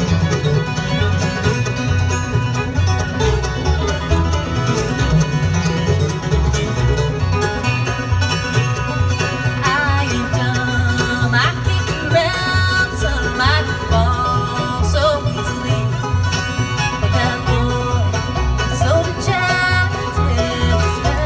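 Live bluegrass band playing through a concert sound system: banjo, acoustic guitars and fiddles over a steady bass line, with a voice singing from about ten seconds in.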